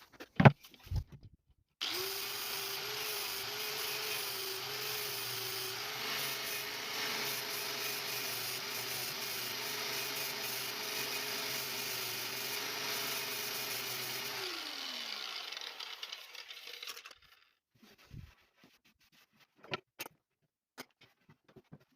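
An electric power tool starts abruptly, runs at a steady speed for about twelve seconds while working wood, then winds down with a falling pitch after being switched off. A few knocks of handling come before and after it.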